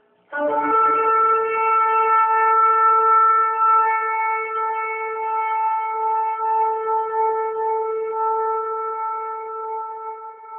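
A horn blown in one long held note. A brief lower tone at the start jumps up to the main pitch, which then holds steady for about ten seconds.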